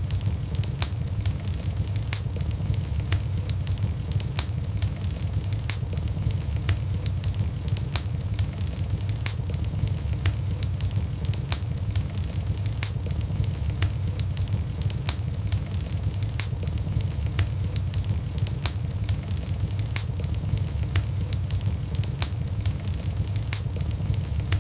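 Wood fire burning in a fireplace: a steady low rumble of the flames with frequent irregular sharp crackles and pops of the burning logs.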